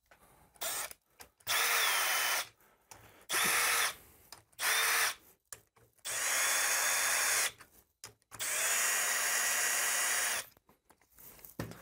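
Cordless drill-driver running bolts into a transmission transfer case, in about six short runs of half a second to two seconds each, with pauses between. The motor's pitch holds steady during each run and winds up and down at its start and stop.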